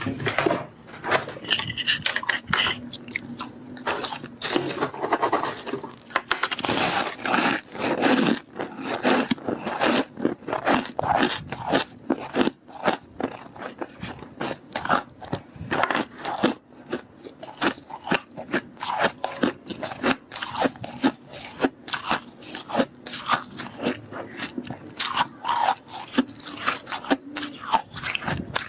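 Chunks of soft freezer frost crunching right at a small earphone microphone, in rapid, irregular crunches without let-up.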